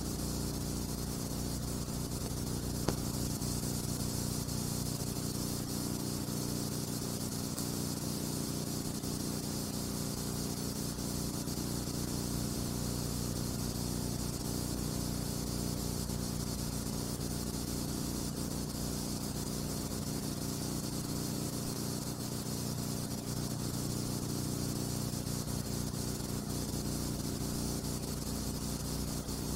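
Steady hiss and low hum with no other sound: the noise floor of a silent film's transfer, which carries no soundtrack. A single faint click about three seconds in.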